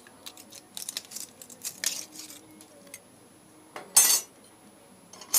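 Light metallic clinks and taps as the rear brake pads and backing plate are worked out of the motorcycle's brake caliper, with one louder scrape about four seconds in and a sharp click near the end.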